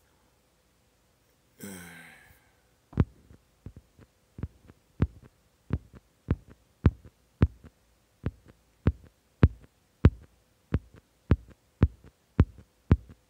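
A short breathy sound, then a steady run of sharp, low taps or thumps, a little under two a second.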